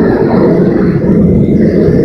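Hand-held propane torch burning steadily against a block of ice, a loud, even rushing noise with no clear pitch.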